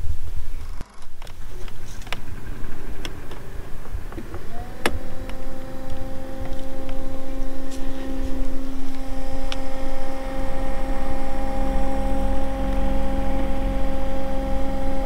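Minn Kota electric trolling motor switched on with a click about five seconds in, then running at a steady speed with an even electric whine. Its propeller is spinning in the air, as the kayak sits out of the water.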